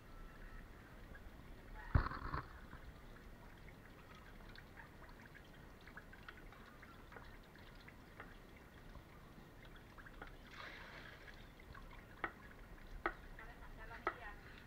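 Coconut milk dripping and trickling from a manual wooden press into an enamel basin, with scattered small drip ticks. A loud knock comes about two seconds in, and a few sharp clicks near the end.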